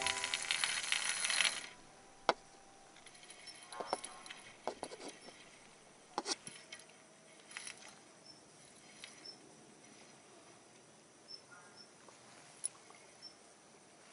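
Scattered small clicks and light metallic clinks from a fishing rod and reel being handled after a cast, following a second and a half of hissing noise at the start.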